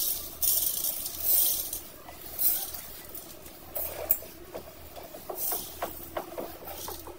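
Dry lentils, split peas and rice swept by hand off a plate into a metal pressure cooker, pattering and rattling against the metal in several short spills.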